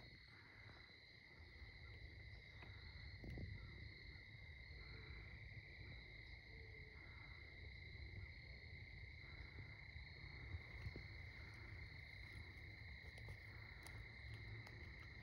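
Near silence: a faint, steady high-pitched insect chorus trilling over a low rumble.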